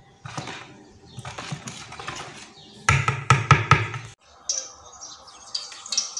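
A hand mixing fish pieces in a bowl of wet black mbongo spice paste: short squelching and scraping strokes, with a louder stretch carrying a pitched sound about three seconds in.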